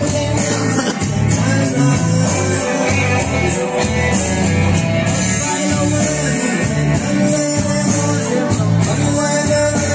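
Live music through a PA system: a man singing into a microphone over electronic keyboard accompaniment with a steady beat.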